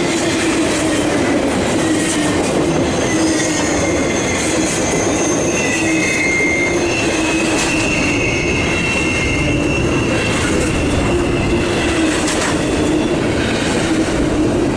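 CSX intermodal freight train's cars rolling past on steel rails, a steady loud rumble, with steel wheels squealing high-pitched from about three seconds in until about twelve seconds.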